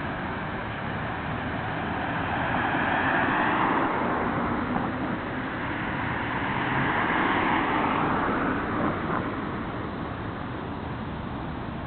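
Road traffic: cars passing, their tyre and engine noise swelling to a peak about three seconds in and again around seven seconds, then easing.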